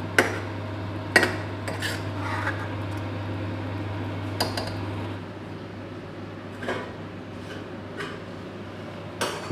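A steel ladle clinking and scraping against a stainless steel kadai of dal as it is stirred, then more sharp metal clinks as cookware is handled. A steady low hum sits underneath and stops about halfway through.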